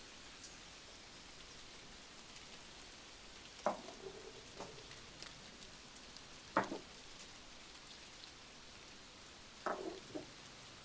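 A faint, steady hiss with fine pattering ticks, like light rain or something sizzling. Over it come a few short knocks and clatters of kitchen utensils, about four seconds in, again at six and a half seconds, and a double knock near the end.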